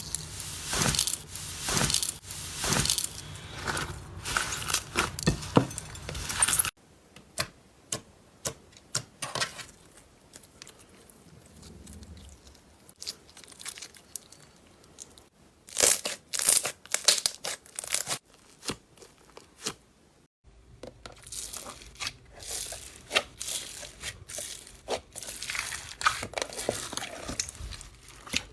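Slime being squeezed and pressed by hand, making crackling, popping and crunching sounds. The sound comes in three separate takes, changing abruptly about 7 and 20 seconds in, with sparser clicks in the quieter middle take.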